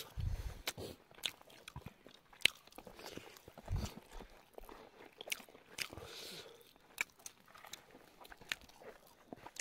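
People eating rice by hand off banana leaves: chewing and crunching with scattered sharp clicks, and a low thump at the start and another about four seconds in.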